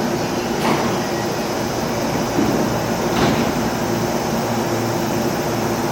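Electric commuter train at the station platform giving a steady hum, with two short clicks about a second in and about three seconds in.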